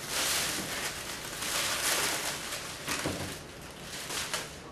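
Rustling and rubbing of packing material as a small flat-screen TV is handled and turned, with a few light knocks.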